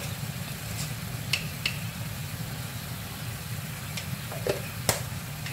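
Water with cut spring onion bubbling in a frying pan on a gas stove, over a steady low rumble, with several light clicks, the sharpest near the end.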